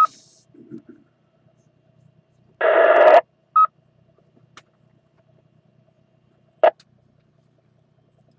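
Two-way radio on a ham repeater: a short beep, then about two and a half seconds in a loud half-second burst of garbled noise as a station briefly keys up without speaking, followed by a second identical beep from the repeater. A short click near the end.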